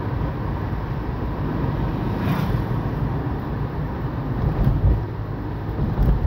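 Steady low rumble of a car's engine and tyres on the road, heard from inside the moving car's cabin, with a few brief knocks.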